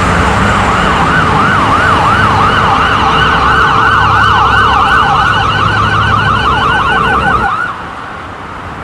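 Emergency vehicle siren yelping, its pitch sweeping quickly up and down, over the rumble of heavy highway traffic. The sweeps grow faster a few seconds in, and everything cuts off suddenly near the end.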